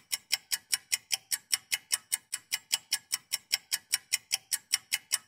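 Rapid, even clock-like ticking, about five ticks a second.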